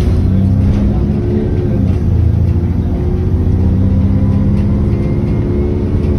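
Alexander Dennis Enviro400 double-decker bus on a Trident chassis accelerating at full kickdown, its diesel engine pulling hard, heard from inside the lower deck. The engine note climbs, drops back at an automatic gear change about two seconds in, then climbs again.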